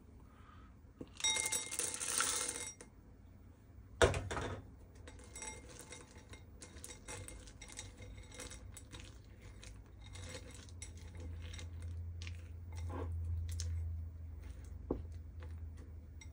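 Chocolate chips poured from a measuring cup into a bowl, rattling for a second or so, followed by a sharp knock. Then a spatula stirs the chips into condensed milk, with many small clicks and scrapes against the bowl.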